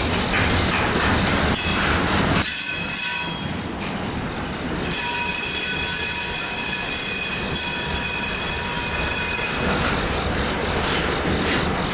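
Intermodal freight cars rolling by with the brakes applied as the train slows to a stop. The wheels squeal in several steady high tones from about two seconds in until a couple of seconds before the end, over the rumble of the cars.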